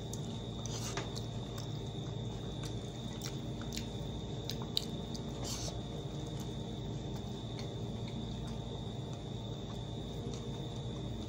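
Chewing and a few light clicks of a spoon against a plate, over a steady high cricket trill and a low hum.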